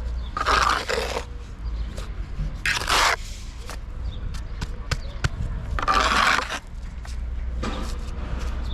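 Four scraping strokes, each lasting about half a second to a second, with scattered sharp clicks between them over a steady low rumble.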